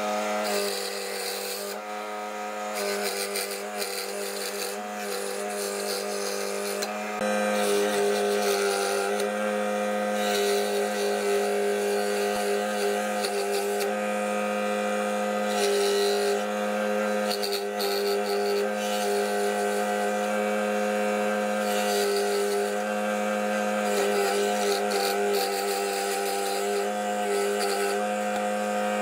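Luxter electric scroll saw running with a steady hum, its blade cutting through a thin wooden blank.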